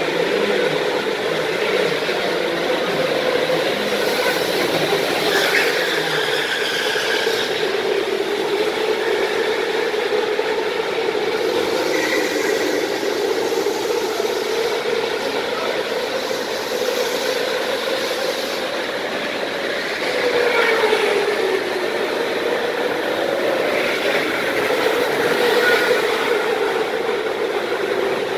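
Go-karts running laps on an indoor track, their motors droning steadily with a pitch that rises and falls as they speed up and slow down.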